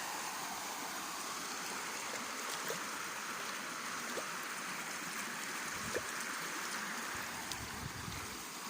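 River water flowing steadily, an even rushing hiss with a few faint knocks.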